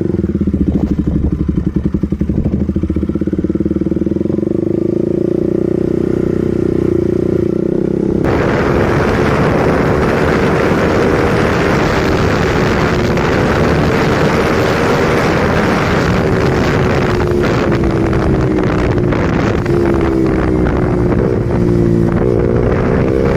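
KTM RC 200's single-cylinder engine running, steady at first. About eight seconds in, wind noise rises as the bike gets under way, and the engine pitch climbs and falls with throttle and gear changes.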